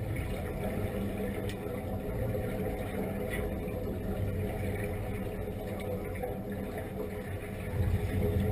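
Steady mechanical hum carried through the water, with a few held low tones over a dense low rumble that swells louder near the end.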